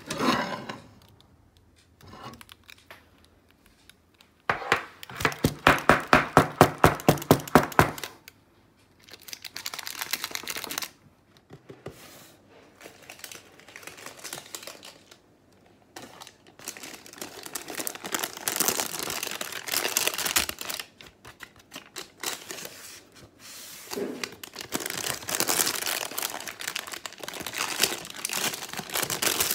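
Parchment baking paper crinkling and rustling as it is pulled up and peeled away from a freshly baked chocolate loaf in its metal loaf tin. Near the start, a loud rapid series of knocks, about five a second for some three seconds.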